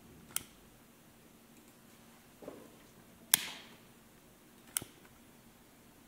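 Three sharp clicks spread over a few seconds, the second the loudest, with a softer knock just before it, over a faint quiet-room background.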